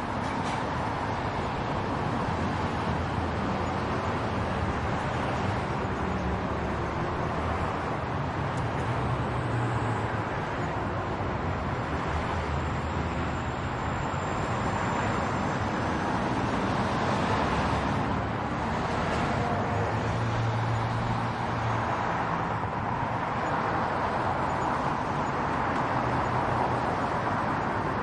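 Steady road traffic: a continuous wash of passing cars and running engines, with a low engine hum swelling twice as heavier vehicles pass close.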